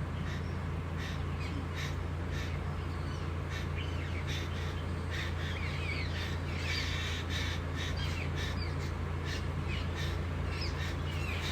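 Birds calling: a run of short, repeated calls, with quick twittering chirps in the middle, over a steady low hum.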